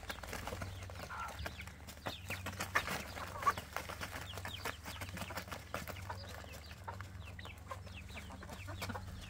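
Hens clucking while they peck, with many small sharp taps from beaks striking a plastic tarp.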